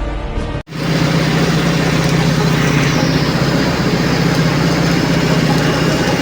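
An engine running steadily with a low, even hum, starting abruptly as music cuts off just under a second in.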